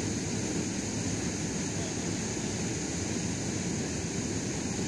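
Steady wind noise on the microphone: an even low rumble with a constant high hiss above it.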